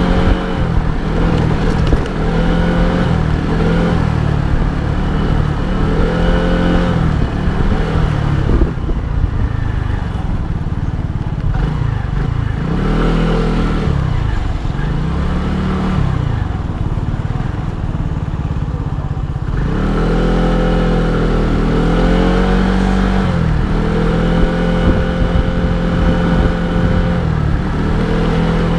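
Lambretta V125 Special scooter's single-cylinder 125 cc four-stroke engine running while ridden at low speed, its pitch rising and falling again and again with the throttle. It eases off and goes softer through the middle, then runs steadier near the end, over a constant low rumble of wind and road.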